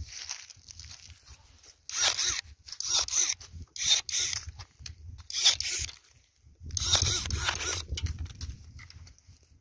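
Footsteps crunching through dry grass and fallen leaves, about one a second, then a longer rustle with a low rumble near the end.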